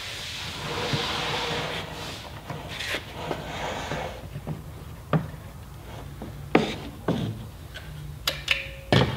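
Caulking gun squeezing out clear silicone along a jet ski hull's sponson mounting edge and into the screw holes: a soft rubbing hiss, then a few sharp clicks and knocks of the gun being handled.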